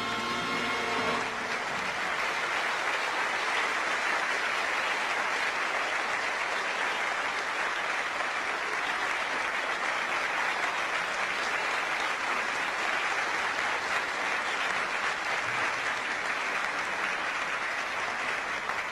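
Studio audience applauding steadily, after the orchestra's final chord dies away in the first second.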